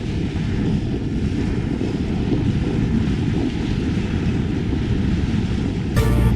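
Steady low rushing rumble of a yacht under way at sea, with no clear engine tone. Music starts abruptly at the very end.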